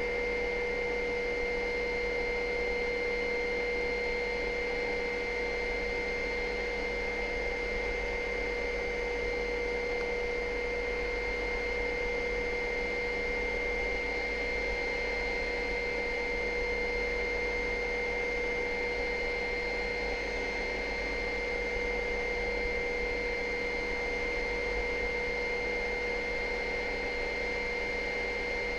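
Helicopter in level flight: a steady drone with several constant, unchanging tones that holds the same level throughout.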